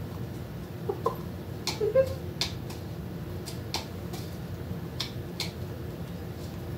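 Chicken's beak pecking food out of a plastic cup: short, sharp, irregular taps, about a dozen in all. A couple of brief soft chicken calls in the first two seconds.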